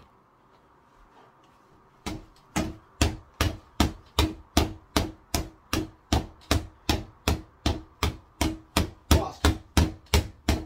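Boxing gloves punching a freestanding reflex bag on a stand: a steady run of hits, about two and a half a second, starting about two seconds in.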